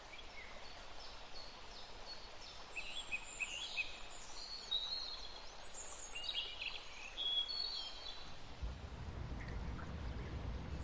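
Birds singing and chirping in quick, varied phrases over a steady outdoor hiss. About eight seconds in, a low rumble joins.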